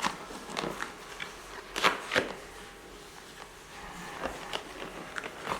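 Scattered light clicks and taps of hands handling a graphics card's box and packaging, with two sharper taps about two seconds in.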